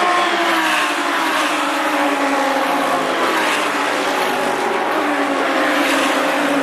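A field of GT race cars passing one after another at full throttle, several engines sounding at once, each note falling in pitch as its car goes by.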